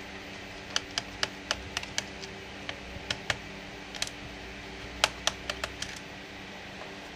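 Sharp, irregular clicks and taps of tools and small parts handled against a laptop's plastic case during disassembly, some in quick runs of three or four.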